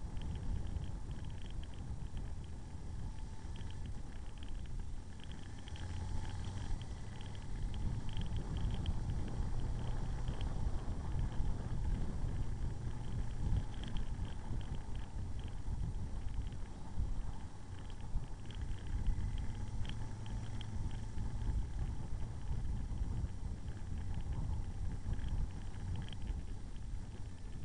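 Motorcycle running at road speed while riding, a steady low rumble mixed with wind noise on the microphone.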